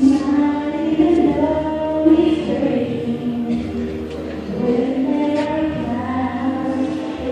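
A choir singing held notes together, the chords changing every second or so.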